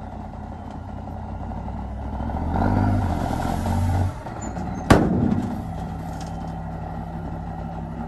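Diesel engines of a small crawler bulldozer and dump trucks running steadily, rising in load for about a second and a half near the middle. About five seconds in there is a single sharp bang.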